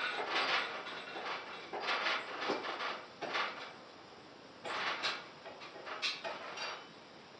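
Metal hand tools clinking and clanking against a motorcycle's front brake calipers and axle, in irregular knocks and rattles, several loud ones close together near the start and a cluster around the middle.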